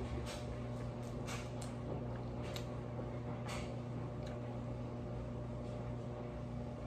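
Quiet room tone: a steady low electrical hum with a few faint, scattered clicks.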